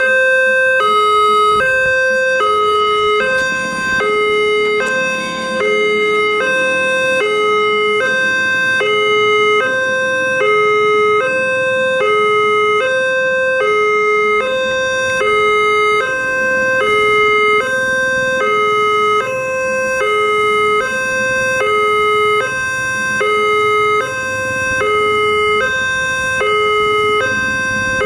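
Railway level-crossing warning alarm sounding: an electronic two-tone sounder alternating between a high and a low note, each held for about two-thirds of a second. It signals that the barriers are closing or closed for an approaching train.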